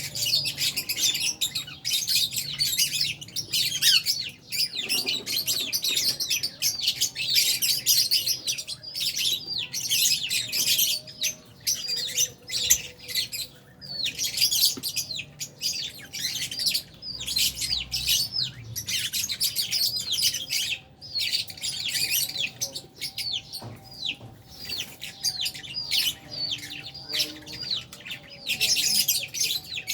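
A flock of lovebirds (Fischer's and albino lovebirds) chirping nonstop in many overlapping short, high calls, with a few brief lulls.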